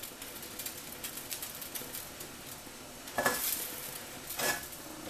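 Water boiling in a stainless pot beneath a frying pan set on it as a double boiler, a steady hiss with faint crackling. About three seconds in and again near the end, the metal pan clinks and scrapes against the pot rim.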